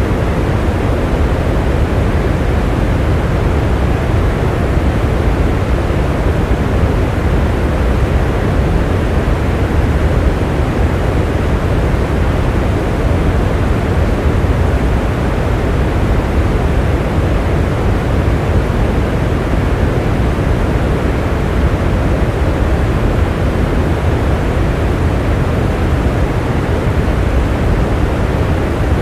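Rain falling steadily, an even, unbroken noise with no single drops standing out.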